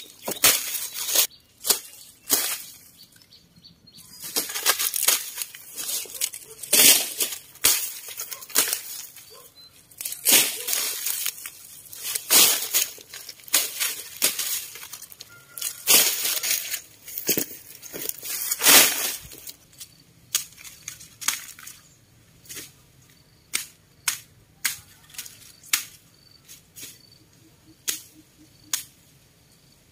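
Machete chopping dry corn stalks: irregular sharp whacks with the crackle and rustle of dry leaves, about one or two a second, turning fainter after about twenty seconds.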